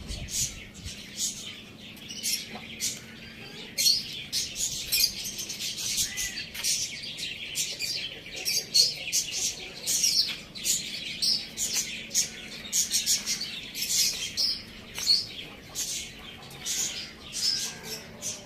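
Many small birds chirping and twittering continuously, short high-pitched calls following one another rapidly and overlapping, over a faint steady hum.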